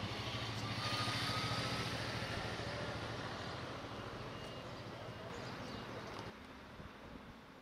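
Race car engine running hard at high revs, its sound slowly fading as the car moves away. It cuts off abruptly near the end.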